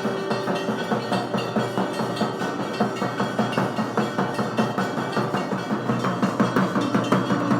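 Hindu temple aarti music: a fast, even drumbeat with ringing bells and a held note in the first few seconds.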